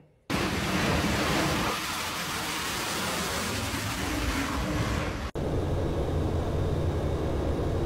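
Jet engines on an aircraft carrier flight deck, a loud steady rush of noise. About five seconds in it cuts to the steady drone of a military aircraft's cabin, with a low hum running under it.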